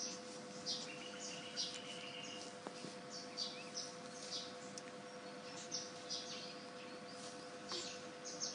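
Small birds chirping: short high chirps, several a second, over a steady faint hum.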